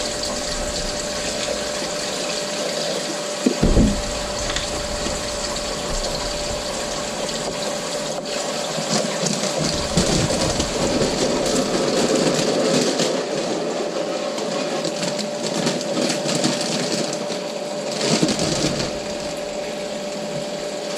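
Kitchen tap running, filling a container with water in a steady rush, with a steady hum under it. A sharp thump comes about four seconds in.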